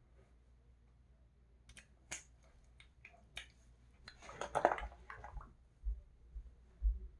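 Small handling noises: several sharp clicks, then about a second of rustling, then a few low thumps near the end.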